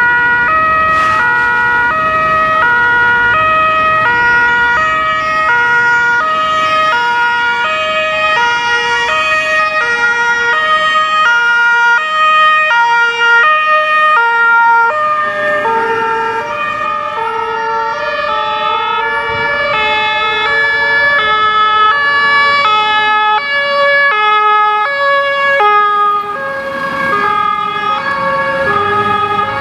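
German two-tone fire-engine sirens (Martinshorn) sounding their alternating high-low notes as fire engines pass. Two horns overlap out of step, and the notes shift slightly lower just past halfway.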